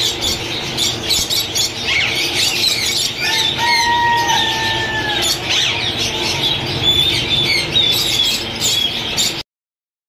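Many caged parrots and other small birds chirping and squawking together in a dense chatter. A single steady whistled note is held for about two seconds a third of the way in, and the sound cuts off abruptly near the end.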